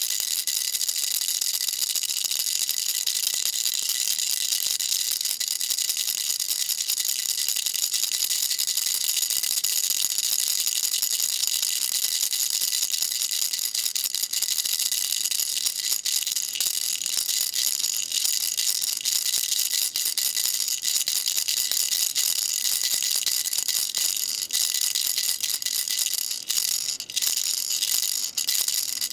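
Baby rattle shaken continuously, a dense steady rattle that is almost all high-pitched, with a few brief breaks near the end.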